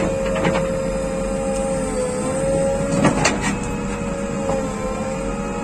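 JCB 3DX Plus backhoe loader running with a steady whine that dips slightly in pitch a couple of times over a low rumble, and a few sharp metallic clanks, the loudest about three seconds in.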